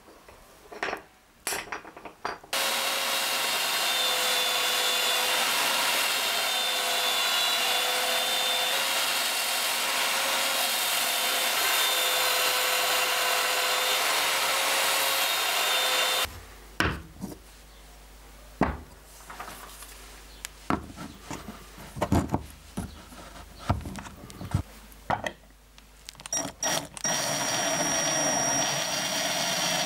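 Belt sander running for about 14 s while the curved edge of a wooden knife-handle scale is ground against the belt, with a steady hum under the sanding noise. Scattered knocks and handling clatter follow. Near the end an electric drill starts boring a hole through the scale's rusty steel liner.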